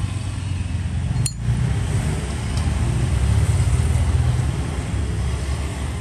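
Low rumble of road traffic, swelling about halfway through and easing off again, with one sharp click a little over a second in.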